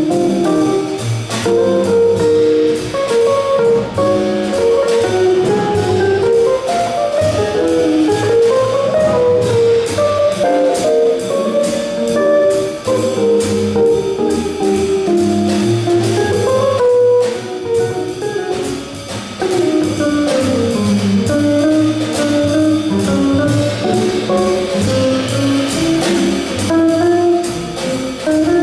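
Live jazz combo: an archtop electric guitar plays a fast single-note solo line over upright bass and a drum kit keeping time on the cymbals.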